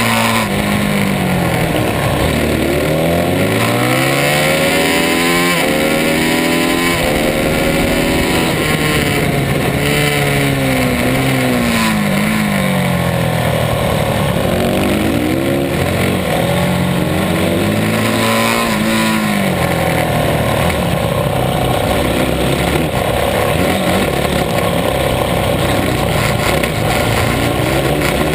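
Supermoto motorcycle engine heard on board, revving up through the gears and dropping back over and over as the bike accelerates out of corners and slows into the next, with a steady wind rush over the microphone.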